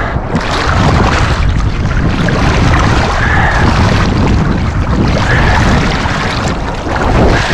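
Wind buffeting the microphone: a loud, steady rumble and rush.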